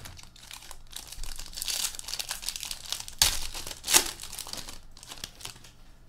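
Plastic wrapping crinkling and tearing as a sealed box of hockey cards is opened by hand, with two sharper, louder rips about three and four seconds in.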